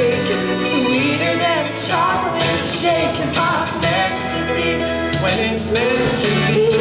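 A pop song playing: a sung melody over a band backing with guitar.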